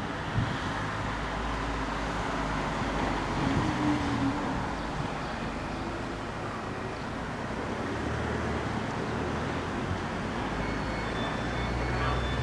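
Steady rumble and hiss of road traffic, with a low hum that fits the idling car waiting at the closed barrier. Faint high thin tones come and go near the end.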